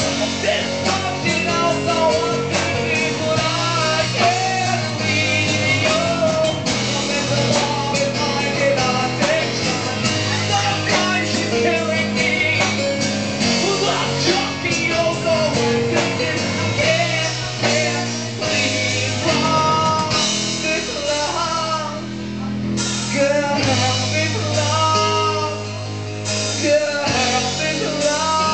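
Live rock band playing, with electric guitar, drums and singing.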